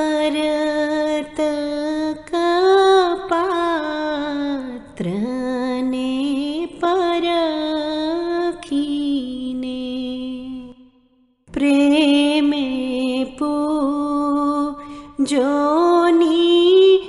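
A solo female voice chanting a melodic mantra in long, sustained phrases, gliding between held notes, with a short pause about eleven seconds in.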